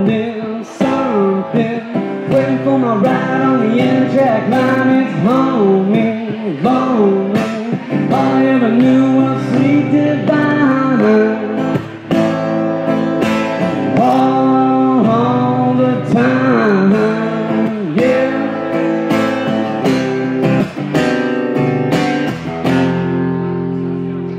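A singer with a strummed acoustic guitar, performing a song. Near the end the singing stops and the last chord rings on, fading.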